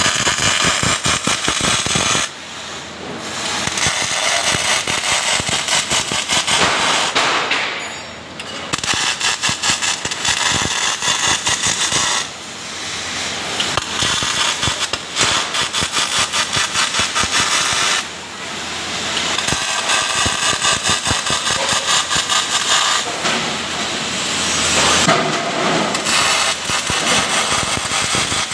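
MIG welding arc crackling steadily as beads are laid on a steel shuttering panel, in runs of a few seconds with about five short breaks between welds.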